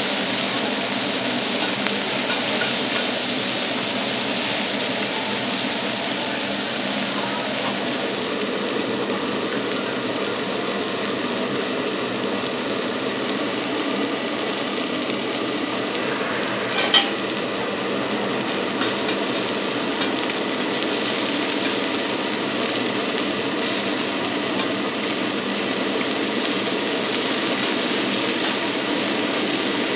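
Oyster blade steak sizzling steadily as it fries, with one sharp tap a little past halfway.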